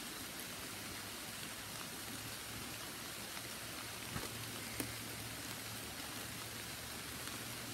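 Steady rain falling, an even hiss, with two faint ticks a little after four seconds and near five seconds in.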